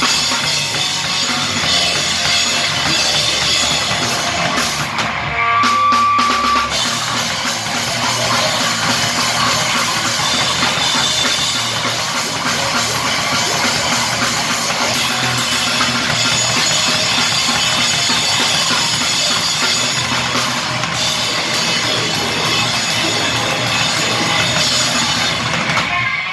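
Live loud rock band playing, with the drum kit up front: kick drum, snare and cymbals hit hard and fast under the rest of the band. About six seconds in the low end drops out briefly and a single high steady tone sounds for about a second.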